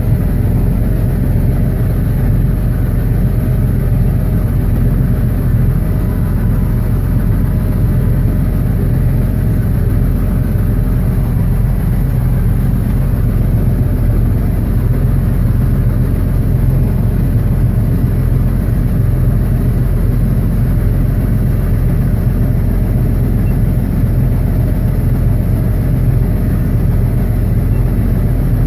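Tractor and New Holland small square baler running steadily while baling hay, the baler driven by its own 29-horsepower motor; a constant engine drone that does not change.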